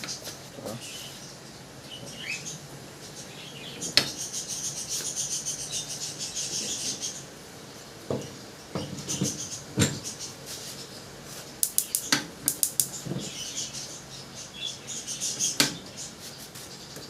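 Metal parts of a gas cooking stove clinking and knocking during repair work on a burner, with single sharp knocks every few seconds and a quick rattle of clicks past the middle. A scratchy high hiss runs for a few seconds early on.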